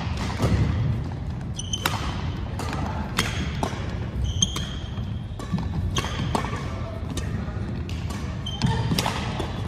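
Badminton rally: several sharp racket strikes on the shuttlecock, irregularly spaced about one to two seconds apart. A few brief high squeaks from sneakers on the wooden gym floor sound between the strikes, over a steady low background rumble.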